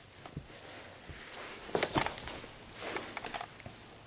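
Soft, faint footsteps and rustling of a handheld camera being carried, with a few light clicks.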